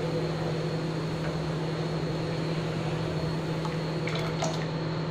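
Steady hiss and low hum of a gas burner on high flame under a pot of milk coming to the boil, with a few faint clicks of the ladle against the pan about four seconds in.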